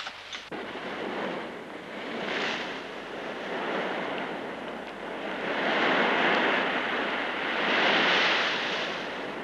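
Stormy sea: waves breaking and churning, with wind. The rush swells and eases in surges and is loudest in the second half.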